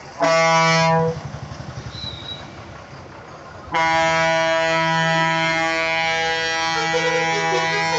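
Bus air horn: one short blast of about a second, then after a pause a long steady blast of several seconds, with bus-stand traffic noise underneath.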